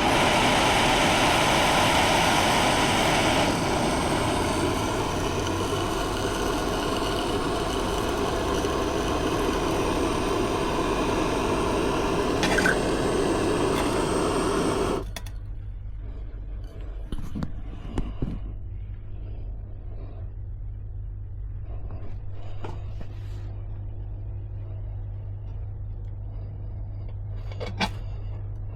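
Soldering torch flame burning with a steady loud hiss while heating copper for silver soldering, shut off suddenly about halfway through. After that, a low hum with a few faint clicks and light scrapes.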